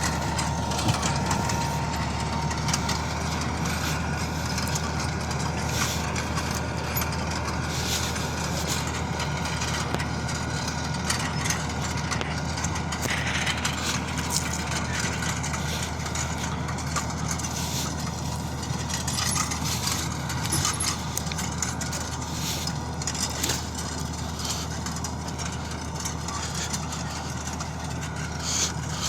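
New Holland TD4.100F tractor's diesel engine running steadily under the load of an 11-tine cultivator, with scattered short clicks and knocks over the drone.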